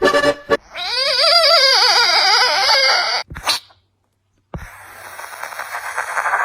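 A series of frog calls. It opens on the end of a rapid pulsed call, then a loud warbling call with quickly wavering pitch lasts about two and a half seconds. After a short silence, a buzzy, rasping croak grows louder toward the end.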